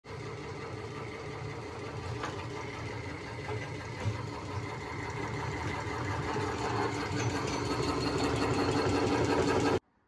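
Homemade motor-driven wire stripper, built from a modified metal roller, running steadily: a low motor hum under mechanical noise, with a couple of light clicks, growing slightly louder and then cutting off suddenly near the end.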